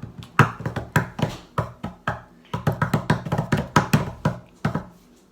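A fast, irregular run of sharp knocks and slaps lasting almost five seconds, with a short break about halfway through.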